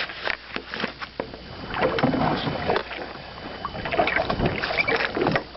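Water splashing and lapping against a small fishing boat, with irregular knocks and rustles.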